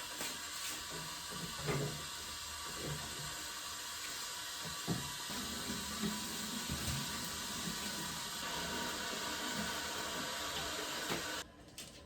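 Tap water running steadily into a sink, with a few soft knocks of things being handled under the stream; the water stops abruptly near the end.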